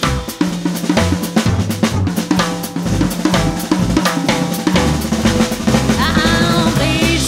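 Dixieland jazz band playing live: a drum kit drives the beat with snare, bass drum and cymbals while bass and pitched band parts play along. A woman's singing voice comes in near the end.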